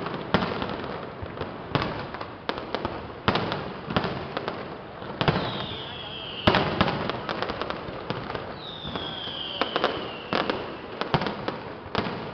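Fireworks display: a rapid, irregular series of bangs and crackles from bursting aerial shells, the loudest about halfway through. Twice a whistle falls in pitch over about a second.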